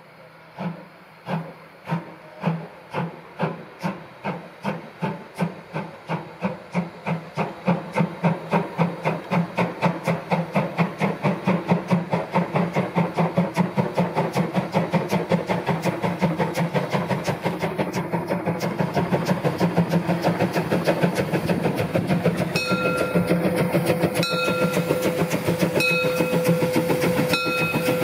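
Narrow-gauge steam locomotive 99 1741-0, a Saxon VII K 2-10-2 tank engine, pulling away with its train. Its exhaust beats start slow, about one and a half a second, and quicken steadily into a fast, even chuffing as it gathers speed. A steady high tone joins in over the last few seconds.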